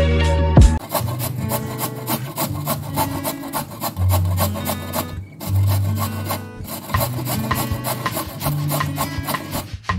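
Raw carrot being grated on a stainless steel box grater, in quick, repeated rasping strokes. Low background music plays underneath.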